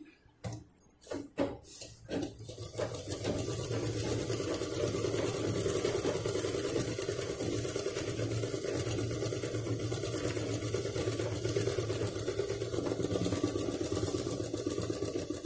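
Domestic sewing machine stitching a seam through layered lining cloth and sponge. A few clicks come as the work is set under the foot, then the machine starts, picks up speed over a couple of seconds and runs steadily, stopping near the end.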